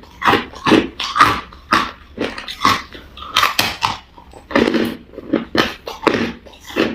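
Crushed clear ice being chewed close up: a run of sharp, crisp crunches, about two or three a second, uneven in spacing and loudness.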